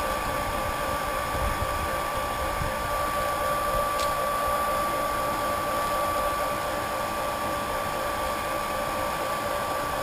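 Small electric wort transfer pump running steadily with a constant whine, pumping the last wort through a plate chiller. A faint click about four seconds in.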